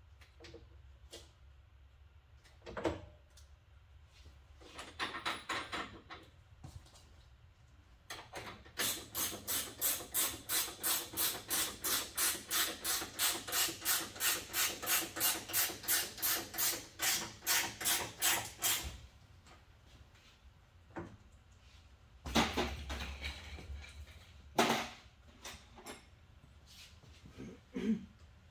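Hand tools at work on a motorcycle: scattered clanks and knocks, then a long run of quick, even strokes, about four a second, that stops suddenly after some ten seconds.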